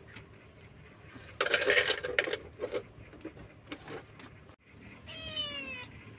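A kitten meowing once near the end, a long call falling in pitch. Earlier, about a second and a half in, comes a loud, harsh noise lasting about a second, followed by a few light clicks.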